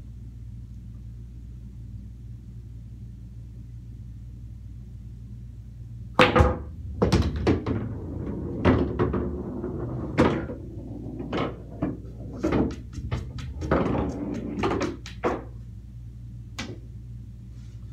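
Pool balls clacking on a bar-size pool table: a sharp strike about six seconds in, then a quick run of clacks and knocks as the shot plays out, and one more click near the end. A steady low hum runs underneath.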